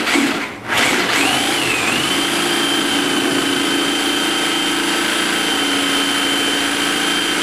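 Reciprocating saw cutting through a vehicle's sheet-metal body panel. It stops briefly just before a second in, restarts and winds up over the next second, then runs at a steady speed.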